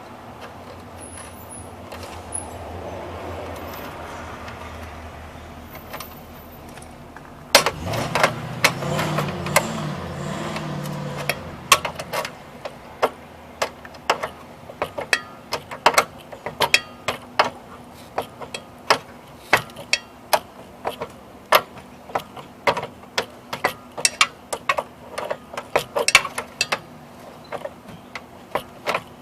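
Ratchet wrench clicking in short strokes, about two clicks a second, as the nut on a compressor mounting bolt is tightened. About eight seconds in there is a louder few-second burst of mechanical clatter before the steady clicking sets in.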